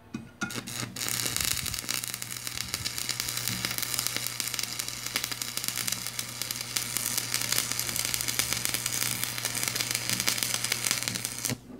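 Stick (shielded metal arc) welding with a 2.5 mm coated electrode on thin steel sheet, fed by a transformer welding machine. After a couple of short strikes the arc catches about a second in and burns with a dense, steady crackle over a low hum, then cuts off sharply near the end as the bead is finished.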